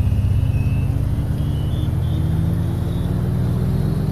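A motor running, its pitch climbing slowly over several seconds.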